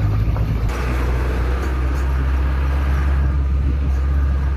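Jeep engine and road noise heard while driving, a steady low drone that drops in pitch a little under a second in.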